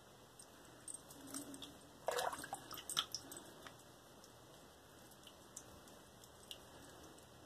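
Slant safety razor making touch-up strokes over lathered skin: a few faint wet clicks and short scrapes bunched in the middle, the loudest a brief scrape about two seconds in.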